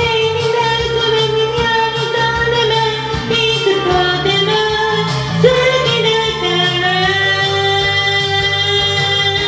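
J-pop song with a sung melody of long held notes over a band backing track with a steady bass line.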